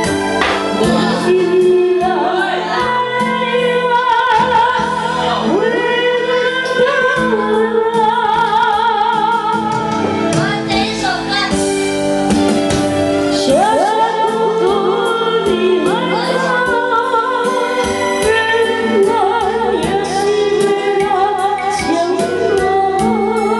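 A woman singing karaoke into a handheld microphone over a backing track, with vibrato on her held notes.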